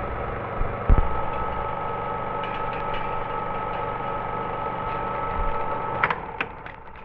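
Film projector running with a steady whir and a low clatter, carrying two steady whining tones. A knock comes about a second in. About six seconds in, the higher tone stops with a few clicks and the sound fades.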